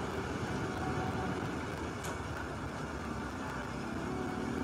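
Steady engine and street traffic noise, with faint engine hum and no distinct impacts or crashes.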